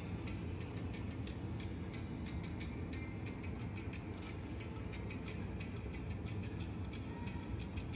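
Electronic music played through a pair of i9s TWS wireless earbuds held up to the microphone. It sounds thin and faint, mostly a fast, even ticking beat.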